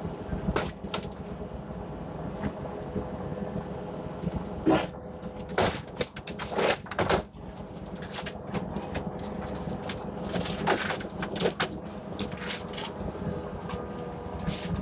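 Demolition excavator working on a building: its engine runs steadily while irregular cracks and crunches of breaking concrete and rubble come in clusters, thickest between about four and twelve seconds in.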